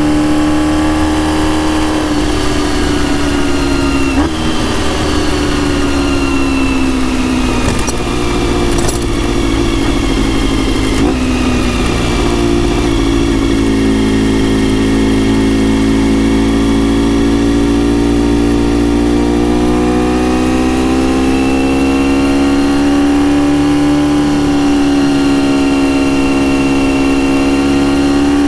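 Honda RVF400 (NC35) 360°-crank V4 with gear-driven cams and a TSR slip-on silencer, running while under way. The engine note eases down over the first dozen seconds, with a few brief knocks, then holds fairly steady with a slight rise and fall.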